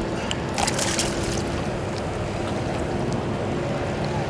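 A freshwater drum splashes at the water's surface as it is let go over the side of the boat, a short burst of splashing about half a second to a second and a half in. Underneath runs the steady rumble of the boat's motor and the river water.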